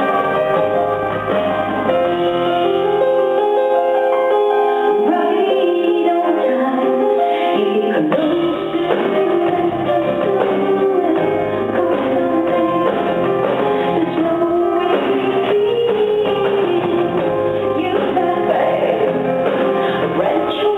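Live band music with a woman singing. The bass drops out for a few seconds about three seconds in and comes back before the middle.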